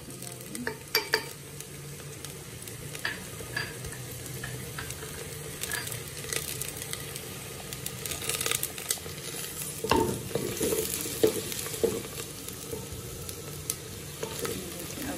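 Chopped onions and freshly added garlic sizzling in hot oil in a clay cooking pot (handi), with a wooden spoon stirring and now and then knocking and scraping against the pot.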